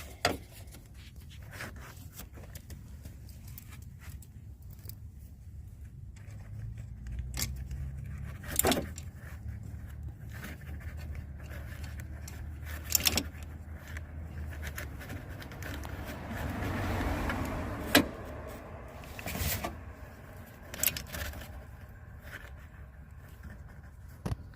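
Scattered sharp metal clicks and clinks from small door-handle latch parts and hand tools being handled and fitted, a few seconds apart, over a low steady rumble.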